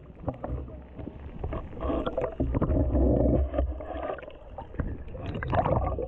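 Water churning and bubbling, heard muffled underwater, as Asian elephants splash in and wade through the pool. There are scattered knocks, and the churning is loudest a couple of seconds in.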